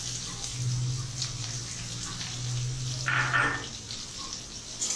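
Chopped onion sizzling in hot oil in a kadai, a steady hiss with a low hum underneath, and a short louder sound about three seconds in.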